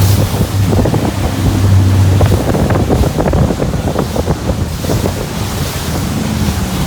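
Tour boat's engine running steadily at low speed, a low hum that eases a little about two and a half seconds in, under rushing water and wind buffeting the microphone.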